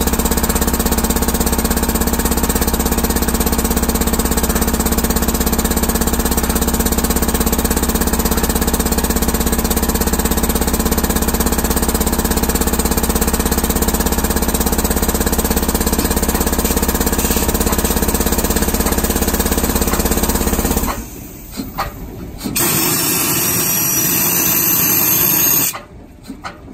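Pescara free-piston air compressor running with a rapid, steady pounding beat. About 21 seconds in it cuts out suddenly; a shorter spell of sound with a rising whistle follows for about three seconds, then stops near the end.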